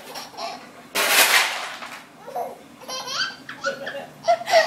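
A baby laughs in short bursts, with an adult woman laughing along. About a second in there is a loud, brief rushing noise.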